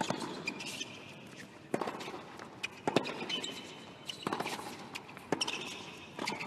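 Tennis rally on a hard court: a series of sharp pops about a second apart as the ball is struck by rackets and bounces on the court.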